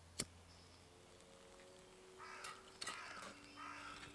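Crows cawing faintly: four harsh caws about half a second apart in the second half. A single sharp click comes just after the start.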